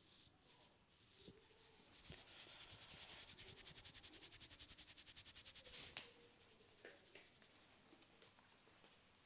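Hands rubbing briskly over hair and scalp in a head massage: faint, fast, evenly paced strokes for about four seconds, ending in one sharp click.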